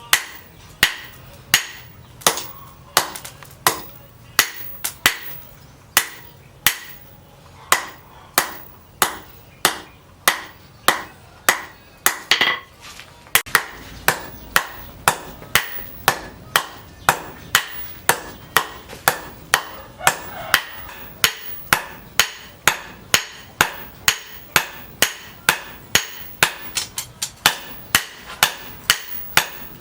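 Hammer blows on leaf-spring steel being forged into a knife, a steady run of about one and a half to two ringing metal strikes a second. Near the end a few quicker, lighter taps come in between.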